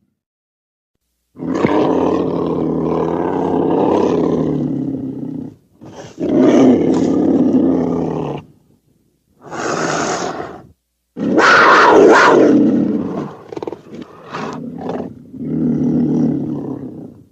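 Growling roars and snarls voiced for an animated one-eyed weasel character, about six in a row with short silences between them. One shorter, hissier snarl comes near the middle.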